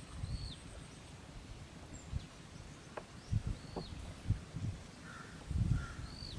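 A bird's short, arched chirp repeats a few times over irregular low thuds and rustling, with the thuds thickest about halfway through and near the end.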